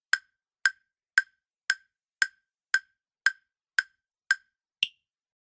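Quiz countdown-timer sound effect: short wooden ticks, about two a second, ten of them, the last one higher-pitched than the others.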